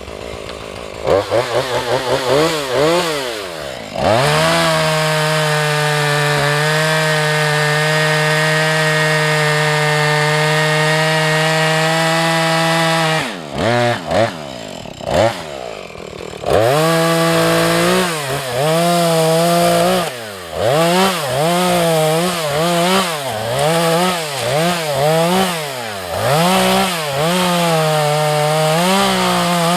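Husqvarna 435 two-stroke chainsaw revving up, then held at a steady full throttle for about nine seconds. It drops back briefly, then is revved up and down over and over, each rise and fall lasting about a second.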